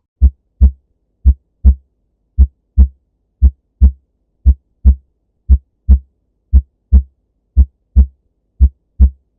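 Human heartbeat in steady lub-dub pairs: the 'lub' (S1) of the atrioventricular valves closing and the 'dub' (S2) of the semilunar valves closing. The thumps are short and low, the two of each pair a little under half a second apart, about one beat a second, nine beats in all.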